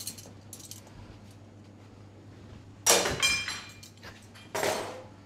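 Two sharp clinks of kitchen crockery being knocked or set down, about a second and a half apart. The first rings briefly.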